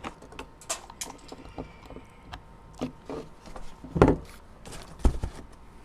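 Scattered clicks and knocks of a plastic 24-volt battery pack and its charger plug being handled while the charger is plugged into the battery, with a louder knock about four seconds in and another about a second later.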